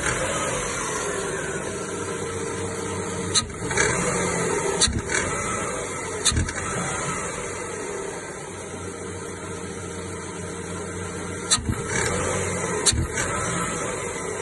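Chevrolet Aveo 1.6 16-valve four-cylinder engine running and being revved, with about five sharp knocks from the accessory belt tensioner. The belt is slightly too long, so the tensioner hits its end stop when the throttle is released, and the knock sounds like a first-cylinder piston pin knock.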